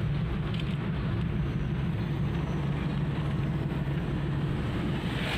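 Steady low rumble of a running vehicle with road noise, even throughout.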